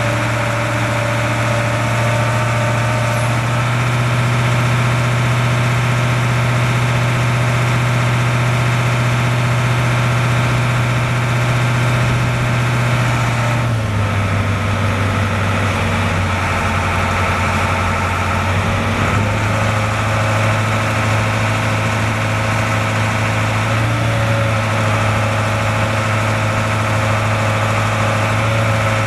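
The Caterpillar 3208 V8 diesel of a digger derrick truck, running steadily. About halfway through, its note steps down slightly.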